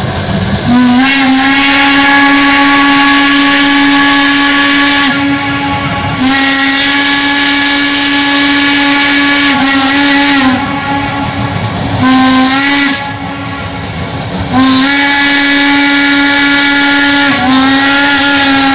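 Steam whistle of a Shay geared logging locomotive blowing a series of long blasts with short breaks between them, including one short toot in the middle. Each blast slides up a little in pitch as it opens.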